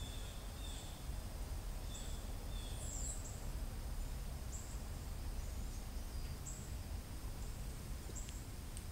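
Short, repeated bird chirps, one with a quick falling sweep about three seconds in, over a steady low rumble.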